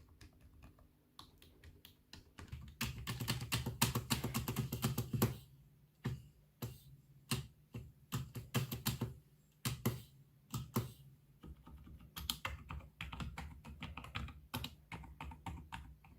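A computer keyboard being typed on, with quiet keystroke clicks. A fast run of keys comes about three seconds in, followed by single presses and short bursts of typing.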